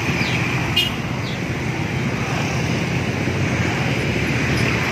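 Yamaha NMAX scooter's single-cylinder engine idling steadily through an aftermarket muffler whose baffle is being tuned for a deeper, smoother tone.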